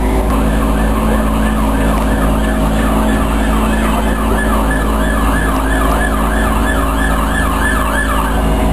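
Emergency vehicle siren sounding in a fast rising-and-falling yelp, several sweeps a second. It starts just after the beginning and cuts off near the end, over a steady low hum.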